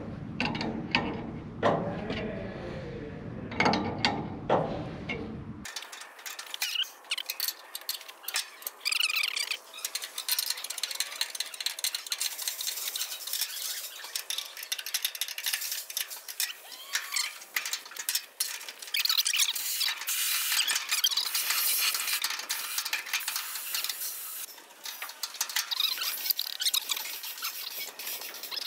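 Hand tools clicking and clinking on the metal fittings of an air tailgate cylinder as it is hooked up. About six seconds in, the low end drops away abruptly and the clicking turns thin and high-pitched.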